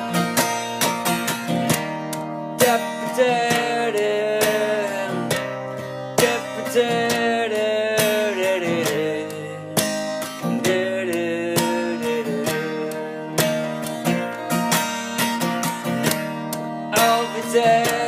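Acoustic guitar strummed through an instrumental break in a song, with a melody line sliding up and down in pitch above the chords.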